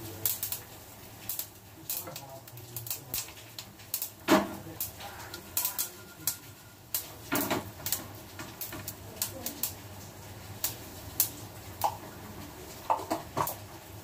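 Mustard seeds and urad dal spluttering in hot oil in a pan for a tadka, irregular sharp pops a few times a second, with a couple of louder knocks from a utensil against the pan about four and seven seconds in.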